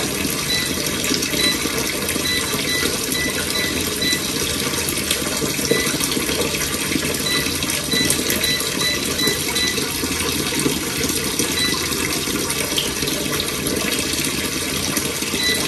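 Kitchen tap left running: a steady, unbroken rush of water.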